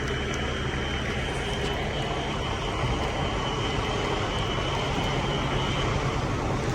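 Fire alarm horns resounding as a steady high tone that cuts off suddenly near the end; Wheelock Exceder horns are among them. Under it runs the low drone of an idling engine.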